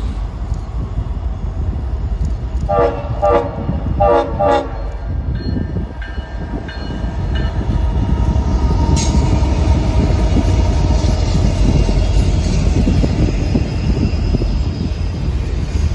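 Freight train's locomotive horn sounding two blasts about three and four seconds in. Then the lead diesel locomotives and double-stack intermodal container cars roll past close by, a loud steady rumble of engines and wheels on rail.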